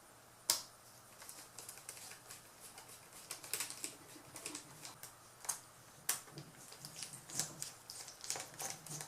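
Screwdriver driving small screws back into a laptop's screen frame: faint, irregular clicks and ticks of metal and plastic, the sharpest about half a second in.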